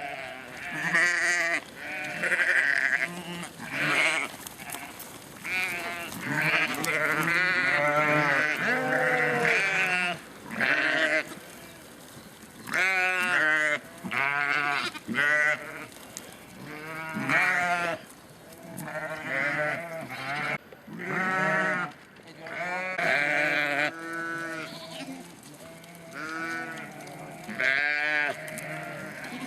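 A flock of ewes and lambs bleating, many calls overlapping one another with only short pauses.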